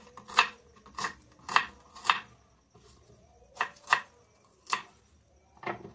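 Kitchen knife chopping a red onion on a wooden chopping board: about eight sharp knocks of the blade striking the board. Four come about half a second apart, then after a pause of about a second and a half, four more come further apart.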